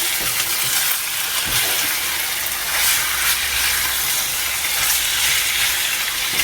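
Chicken frying in a pan with a steady sizzle, stirred now and then.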